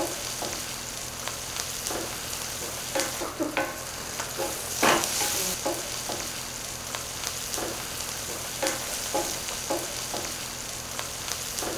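Diced onions sizzling in oil in a stainless steel sauté pan, with a steady hiss, while a wooden spoon stirs them in short, irregular scrapes and knocks against the pan; one louder scrape comes about five seconds in. The onions are being cooked slowly to start caramelizing.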